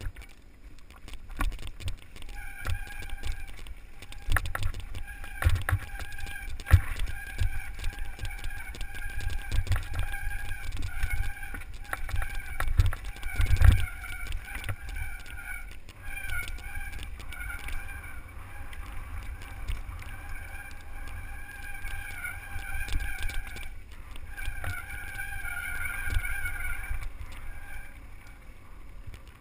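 Mountain bike descending a rough, rocky gravel track, heard from a camera mounted on the rider: constant jolting thumps and rattle from the rough surface, mixed with wind buffeting. A steady high-pitched brake squeal runs through most of it, dropping out briefly near the end.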